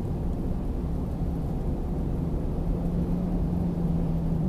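Steady road and engine noise inside a car cruising on a highway, a low rumble with an even hum that grows slightly louder.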